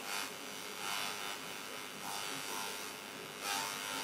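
Electric welding arc from a TIG-style torch hissing and buzzing steadily as a metal pan's rim is welded to a steel leg, with slight swells in level.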